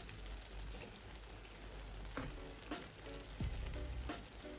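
Minced beef and vegetable sauce simmering in a frying pan with a steady sizzle while a wooden spatula stirs and smooths it. A few light scrapes and knocks of the spatula against the pan come in the second half.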